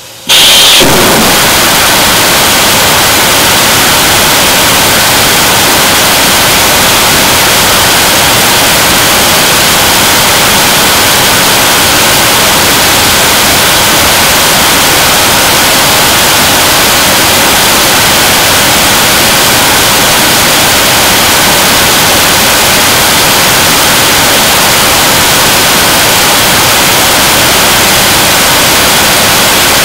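Liquid-propellant (kerosene and liquid oxygen) 7-tonne-class rocket engine igniting on a test stand with a sudden burst a fraction of a second in, then firing at steady thrust: a loud, even rushing noise that holds constant.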